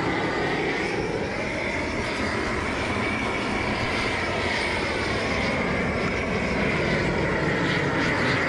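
Propane torch burning at full flame, a steady rushing noise with a faint wavering tone in it, as it scorches the surface of a softwood crate to burn off the soft wood fibres.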